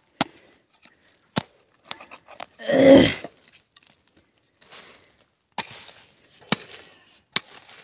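A person coughs once, about three seconds in, among scattered sharp clicks and snaps.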